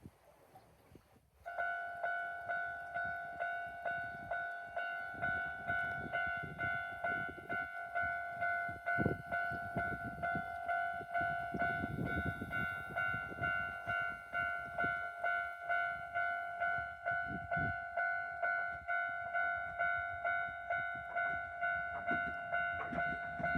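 Japanese level-crossing alarm, the electronic bell of a third-class crossing (warning only, no barriers) in its standard tone, starting about a second and a half in and ringing in steady repeated dings, about two a second, warning of an approaching train.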